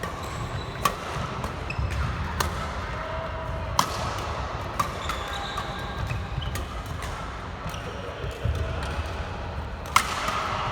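Badminton play: rackets strike a shuttlecock a few times at irregular intervals, the sharpest hit near the end. Short squeaks of shoes on the court floor come in between.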